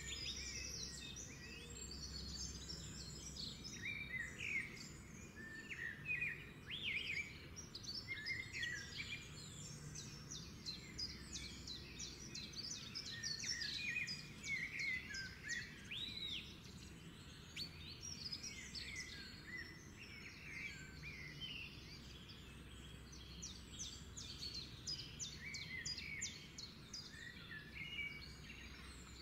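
Many small birds chirping and twittering without a break: quick whistled notes and rising and falling calls over a low steady background hum.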